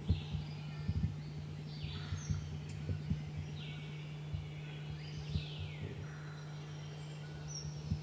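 Songbirds singing in woodland, with high whistled notes and two long falling phrases, over a steady low hum and scattered soft low thumps.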